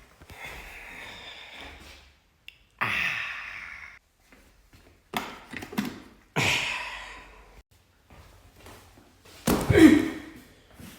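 Chiropractic adjustments: several sudden thumps, each trailing off in a breathy rush, and a louder short gasp near the end.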